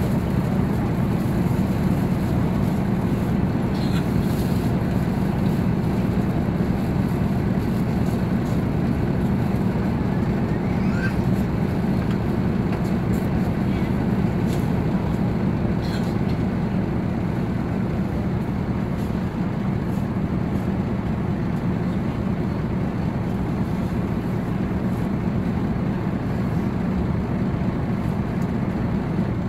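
Diesel engine of a rear-engined intercity coach running steadily at low revs, heard close to the engine compartment at the back of the bus.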